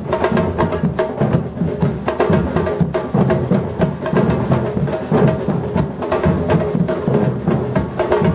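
Batucada drum ensemble playing a dense, driving rhythm: deep bass drums under fast, sharp strikes of higher drums and woody, clicking percussion.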